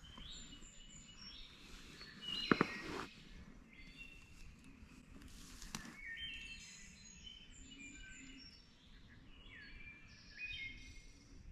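Several songbirds singing, with many short high chirps and trills overlapping throughout. About two and a half seconds in comes a brief, louder, lower rattling burst.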